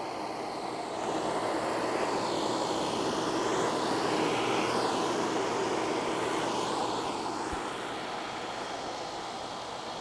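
A passing engine's rumble that swells about a second in and fades after about seven seconds.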